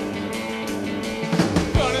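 A rock and roll band's recorded intro. Strummed guitar chords play at first; about a second and a half in, the drum kit and bass come in with a beat, and a lead electric guitar line with bending notes plays over them.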